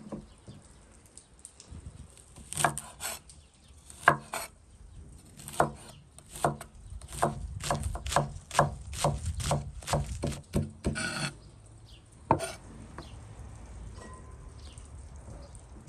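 Chef's knife chopping green onions on a wooden cutting board: sharp knocks, scattered at first, then settling into a steady run of about two to three cuts a second before stopping, with one last knock a second later.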